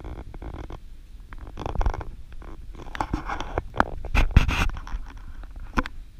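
Irregular rustling, scraping and sharp clicks close to the microphone, with a low rumble under them, loudest about four seconds in: handling noise from a camera carried by hand.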